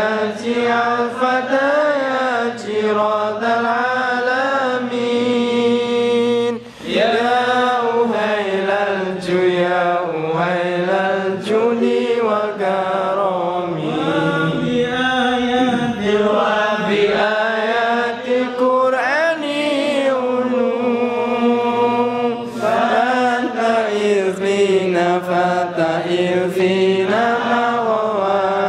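Men's voices chanting Arabic devotional verses together in a slow, melismatic melody, with no instruments. There is a short break for breath about six and a half seconds in.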